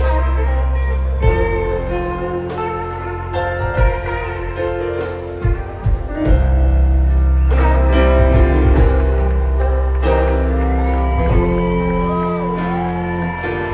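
Live rock band playing an instrumental passage, with guitar over sustained chords and a steady bass, and gliding guitar notes near the end.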